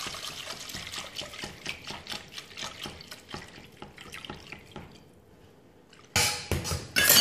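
Milk poured from a glass jug into an aluminium saucepan of roux, splashing and trickling while a silicone whisk stirs, adding the milk for a béchamel; the pouring fades away about five seconds in. About six seconds in, brisk whisking starts, loud rapid scraping and clattering against the pan.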